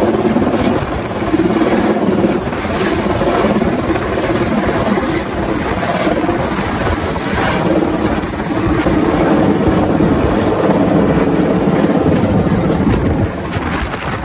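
Helicopter flying close by, its rotor chop loud and steady, easing slightly near the end.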